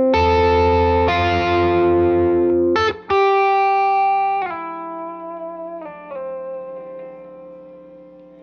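Electric guitar, a Fender Jazzmaster, played with light overdrive through a Klon-style overdrive pedal into a Fender '68 Custom Deluxe Reverb tube amp. It plays a short run of chords, with a quick strum about three seconds in, then lets the last chords ring out and fade.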